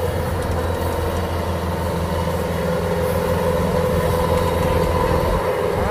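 Kubota DC-105X combine harvester's diesel engine running steadily as the machine crawls slowly on its rubber tracks, a constant deep drone with a steady higher tone held above it.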